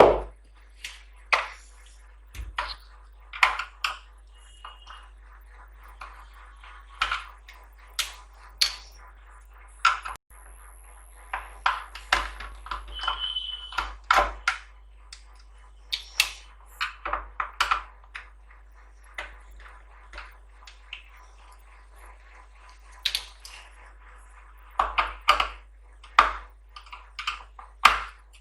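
Irregular metallic clicks, clinks and knocks of screws and tools on a voltage stabilizer's casing as it is taken apart, with a couple of short ringing pings.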